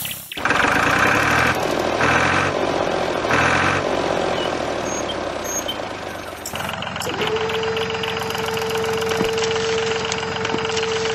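Diesel tractor engine running with a knocking clatter, surging three times in the first four seconds. About seven seconds in, a steady whine joins it and holds while the trailer's tipper lifts the load of bricks.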